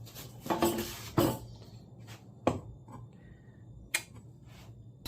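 A few short knocks and clicks of hand tools being handled against wood on a workbench, while the depth of a freshly cut groove is checked.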